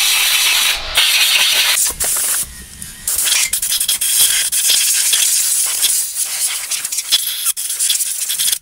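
Compressed-air blow gun hissing in repeated blasts, blowing brake dust off a disc brake caliper; the hiss drops away briefly about two and a half seconds in.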